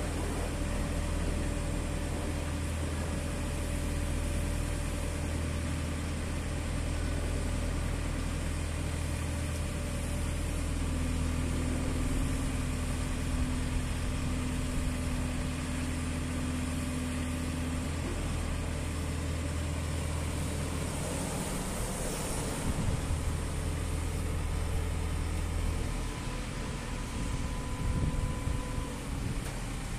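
JCB 540-170 telescopic handler's diesel engine running steadily while the hydraulics raise and extend the boom. For several seconds midway a higher steady tone rises out of the engine sound.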